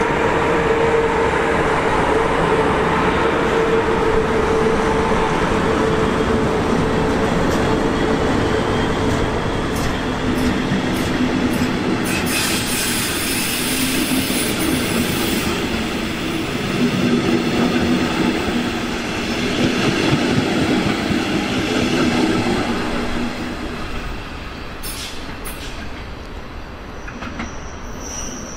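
Electric double-deck push-pull regional train passing close by and running away round a curve. A steady whining tone runs through the first ten seconds and a high hiss comes from the wheels about halfway through. The sound fades over the last few seconds as the driving trailer draws away.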